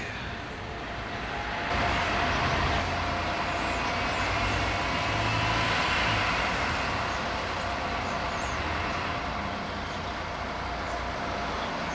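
A large road vehicle's engine running nearby, swelling about two seconds in and easing off slowly, with a steady thin whine over a low hum.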